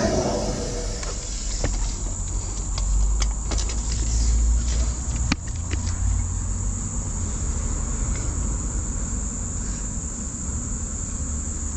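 Engine of a drain jetter running steadily, a low hum with a thin high whine over it and a few scattered clicks.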